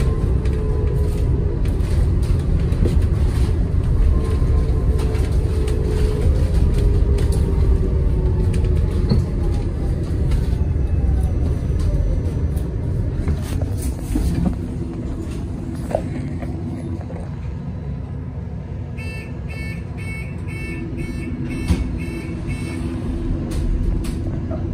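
Inside a BYD Alexander Dennis Enviro200EV electric bus: road rumble with the electric traction motor's whine falling in pitch as the bus slows, then growing quieter. Later comes a quick run of about eight short beeps, about two a second, and near the end the whine starts rising again as the bus pulls away.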